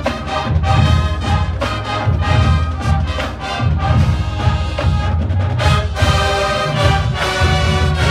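University marching band playing live: full brass section with a strong low-brass bottom over a steady drum beat.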